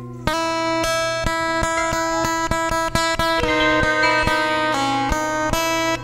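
Guitar music: plucked notes with sharp attacks that ring on, about two to three per second, starting a quarter second in.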